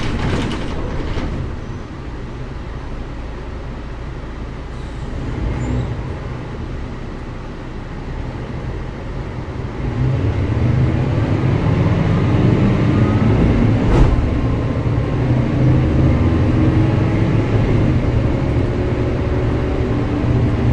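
Mercedes-Benz O405GN² articulated bus running, quieter at first. From about halfway its engine gets louder and its pitch climbs several times as it pulls away and accelerates. A single sharp click comes a little after that.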